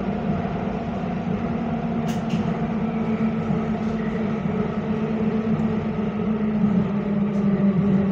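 Copenhagen Metro driverless train running through an underground tunnel, heard from inside the carriage: a steady rumble of wheels and running gear with a faint steady whine over it.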